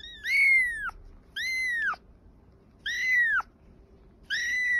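Young kitten mewing four times, about once every second and a half, each a short high-pitched mew that rises and then falls in pitch.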